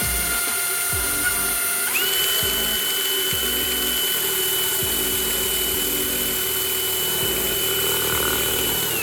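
Electric power tool motor running with a steady high whine, which steps up to a higher pitch about two seconds in and holds there. Background music runs underneath.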